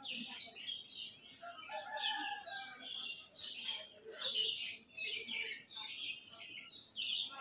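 Birds chirping busily, many short calls overlapping, with a few brief sliding whistled notes.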